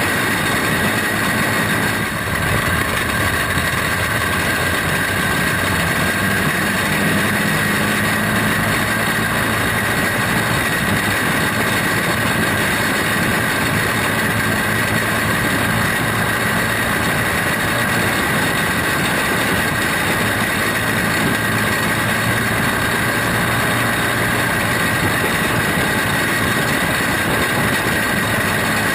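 Small single-cylinder engine of a caged dirt-track racing kart running steadily at racing speed, heard from on board as a continuous drone over a rush of wind and track noise.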